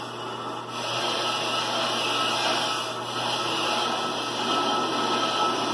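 Ammco bench brake lathe running, spinning a brake rotor on its arbor while its cutting bits resurface the disc. A steady mechanical whir that gets louder and brighter about a second in.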